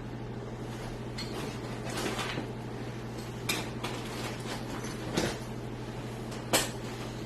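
Handling noise of small hard objects being moved about: a few separate light knocks and clatters, spaced a second or two apart, over a steady low hum.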